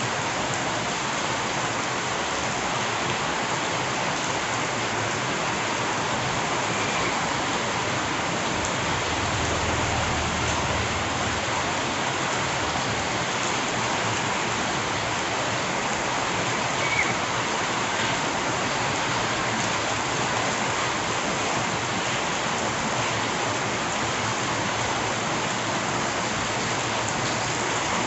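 Steady rain falling, an even dense hiss, with a low rumble about ten seconds in.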